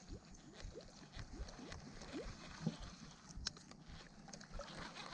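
Faint water lapping and gurgling against a small boat's hull, with a single light click partway through.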